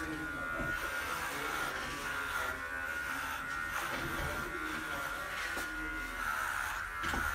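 Cordless electric pet clipper running with a steady buzz as it shaves through a pug's coat.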